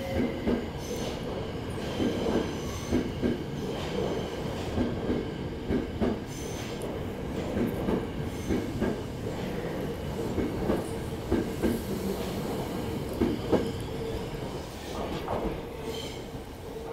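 Eidan (Tokyo Metro) 02 series subway train pulling out of the station and running past: a continuous rumble of wheels on rail with irregular clacks over the rail joints and a steady tone above it, growing quieter near the end as the train draws away.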